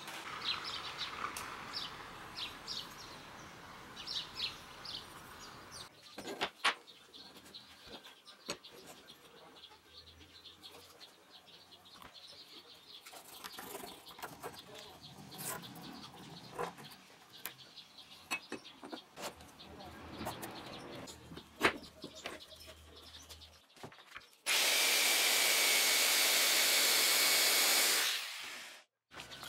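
Light clicks, taps and scrapes of hand work on a steel knife blade, with birds chirping in the first few seconds. Near the end an angle grinder runs loudly on a wooden handle block for about four seconds with a steady whine, then cuts off abruptly.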